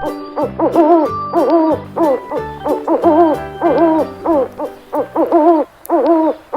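Owl hooting: a rapid run of short hoots, each rising then falling in pitch, about three a second, over a faint music bed.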